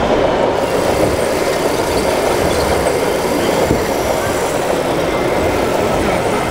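A steady, loud mechanical rumble from radio-controlled 1:14-scale construction models at work, a Liebherr 960 model excavator and a Volvo articulated dump truck, mixed with the general hubbub of a busy hall.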